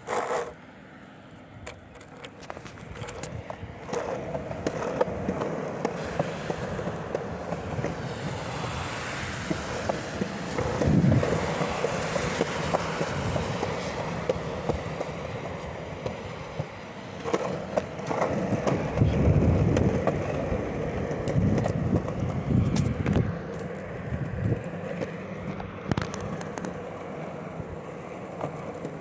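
Longboard wheels rolling on a concrete sidewalk: a steady rumbling rush that builds over the first few seconds, with a few sharp clacks as the wheels cross the sidewalk joints and heavier low rumbles now and then.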